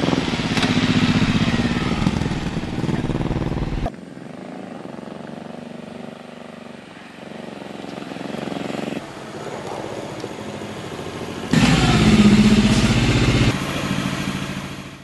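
Cruiser-style motorcycle engine running. It is loud for the first four seconds, then cuts suddenly to a quieter, steadier run. About three seconds before the end it is loud again, then it dies away.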